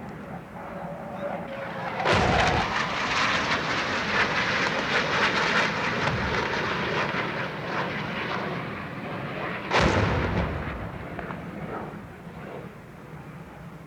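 Air strike sound effect: aircraft noise with a sudden loud blast about two seconds in, followed by several seconds of crackling rumble. A second blast comes near ten seconds, then the sound dies away.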